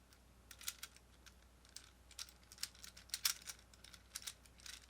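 Light, irregular plastic clicks and taps, several a second, from a plastic infinity cube being folded and flipped over in the hands.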